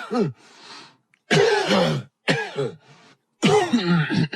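Coughs and throat clearing by a person's voice, slowed down with reverb added: three drawn-out bursts, each sliding down in pitch.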